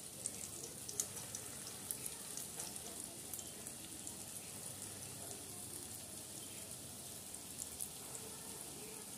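Urad dal batter fritters (boras) deep-frying in a kadai of hot oil: a steady sizzle with scattered crackles and pops as more dollops of batter are dropped in.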